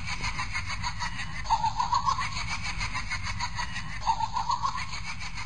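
Laughter in two short choppy bursts, about a second and a half in and again about four seconds in, over a low steady rumble.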